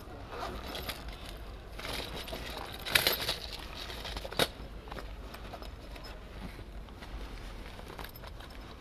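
Rustling and crackling of dry leaves and undergrowth, loudest for a second or so about two to three seconds in, with two sharp clicks about three and four and a half seconds in.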